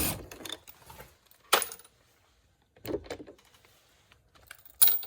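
A cordless driver's whine cuts off right at the start, followed by three sharp metallic clicks and clinks spread over the next few seconds as the small door-card bolts and the tool are handled.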